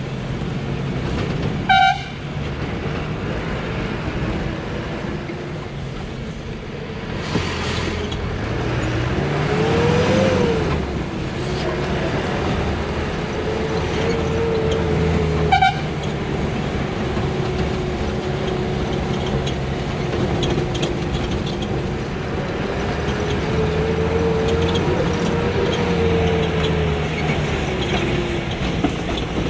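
Bus engine heard from inside the bus, running under load, its pitch rising and falling as it revs and changes gear on the hill road. Two short horn toots sound about 2 seconds and about 16 seconds in.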